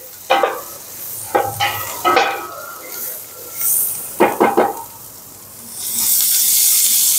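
Metal utensils clattering and ringing against stainless stockpots as a pot of shrimp-head stock is stirred. About six seconds in, a steady hiss begins.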